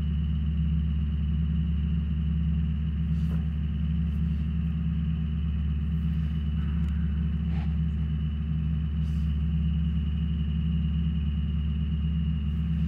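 Ford E-350's 7.3-litre Power Stroke V8 turbodiesel, fitted with a Holset HX50 turbo and dual 5-inch exhaust, idling steadily with no revving.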